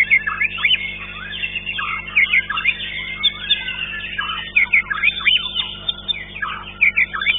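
White-rumped shama (murai batu) singing in a bird-song contest: a fast, unbroken stream of varied whistles and sharp chirps.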